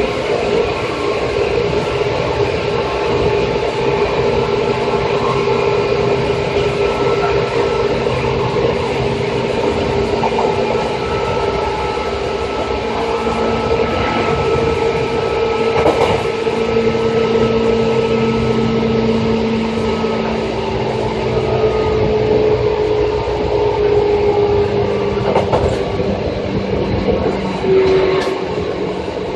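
Electric train set 2453F running at speed: steady rumble of wheels on rail with a constant motor whine that sinks a little in pitch over the last several seconds. A few sharp clicks come from the wheels over rail joints.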